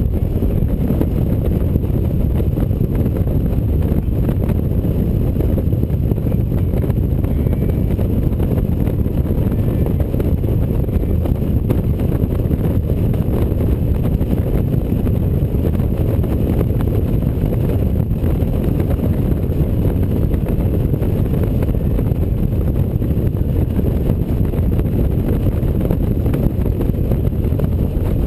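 Steady wind rush on the microphone and road noise from a touring motorcycle cruising at highway speed, an even low roar with no changes in pace.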